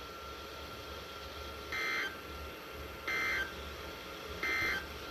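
Emergency Alert System end-of-message data bursts: three short digital bursts about one and a half seconds apart, each about a third of a second long, over a faint steady hum. They signal the end of the broadcast warning.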